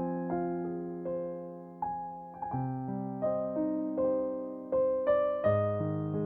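Piano music: a slow melody of struck notes over low chords, each note fading before the next.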